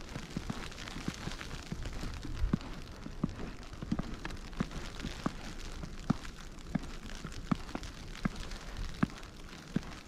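Footsteps crunching through snow at a steady walking pace, about one step every three-quarters of a second. Blizzard wind rumbles throughout, with many smaller irregular ticks between the steps.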